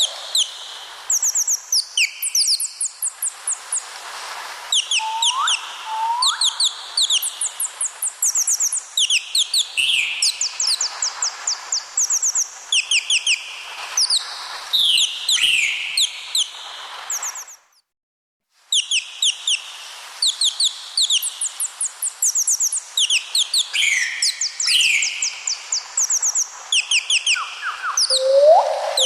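A dense chorus of birds chirping: rapid runs of short, high notes, with lower rising whistles now and then. The sound cuts out for about a second a little past halfway.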